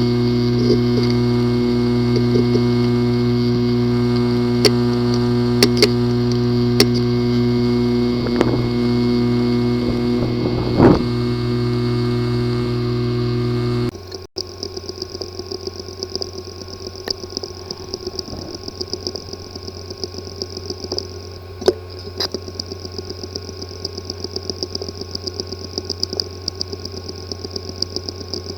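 A hard drive with a physically damaged disk assembly, recorded running: a steady buzzing hum with occasional sharp clicks. About halfway through it cuts abruptly to a quieter high whine with rapid, irregular ticking. These are the clicking and buzzing of head and platter damage.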